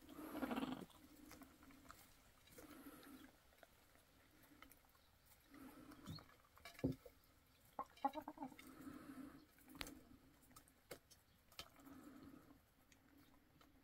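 Faint, soft low clucking from hens feeding, recurring every second or so, with scattered light ticks of beaks pecking feed from a clay bowl.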